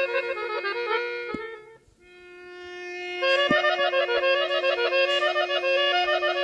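Armenian instrumental background music: a melody over a steady held drone note. It fades almost to nothing about two seconds in, the drone swells back, and the melody comes in again about three seconds in.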